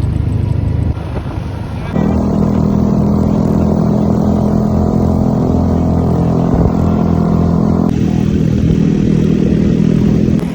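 A motor vehicle engine running steadily, its sound changing abruptly about two seconds in and again about eight seconds in.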